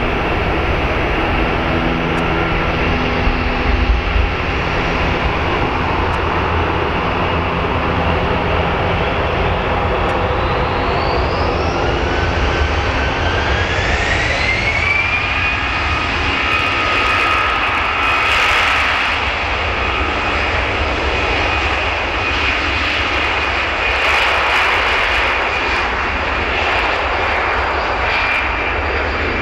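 Twin jet engines of an Airbus A319 airliner, running with a steady rumble, then spooling up with a whine that rises in pitch over several seconds about a third of the way in. The whine then holds high and steady as the engines reach takeoff power.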